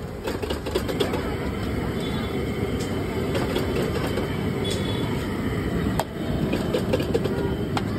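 Metal spatula clanking and scraping in a large wok as noodles are stir-fried, with short metallic clicks throughout. Under it runs a steady sizzle of frying oil and a gas burner.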